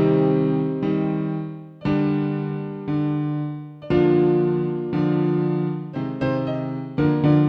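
Background music: slow piano chords, struck about once a second and left to ring out.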